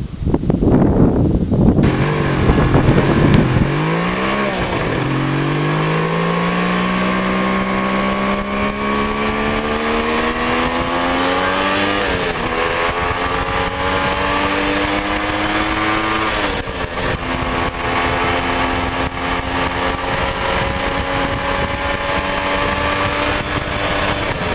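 Wind buffeting the microphone for about two seconds, then a Suzuki GT550 air-cooled two-stroke triple under way. Its engine pitch climbs steadily through the revs and drops sharply at each upshift, about four, twelve and sixteen seconds in, then climbs slowly again.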